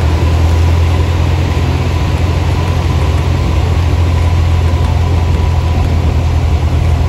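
Cessna 172's piston engine and propeller droning steadily, heard from inside the cockpit.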